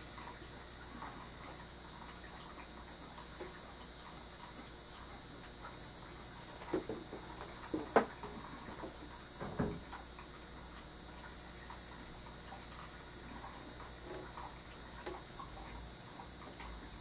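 Faint, quiet handling noise of painting tools: scattered small clicks and taps over a steady hiss, with a short run of louder knocks and taps about seven to ten seconds in.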